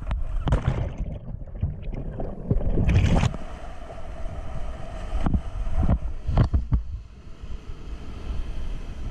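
Kayak paddling through whitewater: paddle-stroke splashes and wind buffeting the camera microphone, then from about three seconds in the steady rush of river rapids around the boat, broken by a few sharp splashes of paddle strokes.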